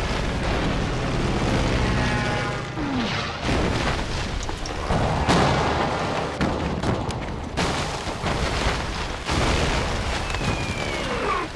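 Film battle sound effects: bombs exploding one after another over a continuous roar of battle. Several sudden loud blasts stand out, with a few sliding whistle-like tones.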